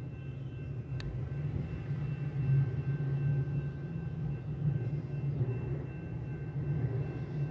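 Melbourne Metro suburban electric train passing over a level crossing: a steady low rumble that grows louder about a second in, with a faint steady whine above it. A single sharp click sounds about a second in.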